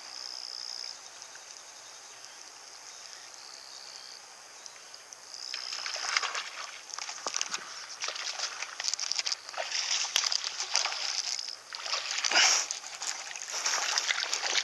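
Irregular splashing at the water's surface, starting about a third of the way in and growing busier, with the loudest splash a little before the end: a small largemouth bass hooked on a buzzed swimbait, thrashing as it is reeled in to the bank.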